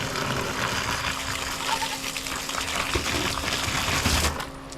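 Water running and splashing steadily as goats' water is being changed, stopping abruptly about four seconds in and starting again just after.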